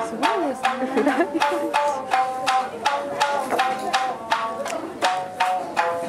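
Tsugaru shamisen played solo: a fast run of hard, percussive plucks, several a second, each a sharp strike of the plectrum with a bright ringing note.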